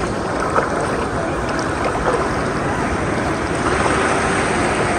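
Steady wind and ocean surf noise, with wind buffeting the microphone, and faint children's voices in the background.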